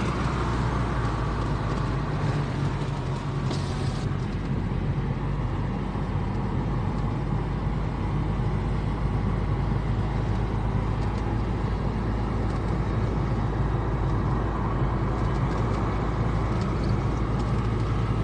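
Steady engine and road noise of a car driving along a road.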